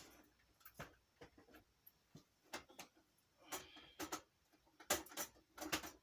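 Irregular clicks and knocks of hard objects being handled and moved about, a dozen or so short sharp sounds with the louder ones in the second half.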